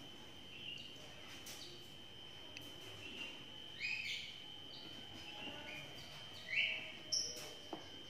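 Lovebird chicks giving short, scattered chirps, with a couple of louder ones past the middle, over a faint steady high-pitched tone.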